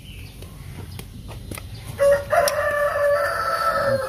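A rooster crows once, a single long call of about two seconds starting halfway through, the loudest sound here. Before it, a few sharp snips of pruning shears cutting fig branches.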